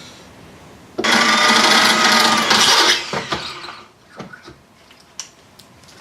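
Electric drill with a 3 mm bit running for about two seconds, drilling out a sheared bolt stub in a car's wiper linkage, then winding down. A few light clicks and taps follow.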